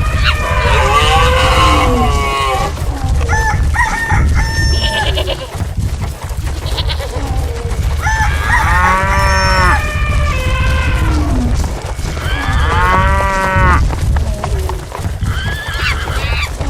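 Animal stampede sound effects: a steady low rumble of running hooves under a series of farm-animal calls, with two long calls about nine and thirteen seconds in.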